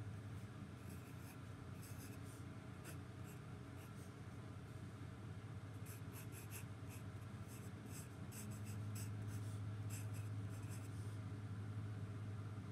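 Graphite pencil scratching across sketchbook paper in short strokes as words are written out. A steady low hum runs underneath and gets louder about two-thirds of the way through.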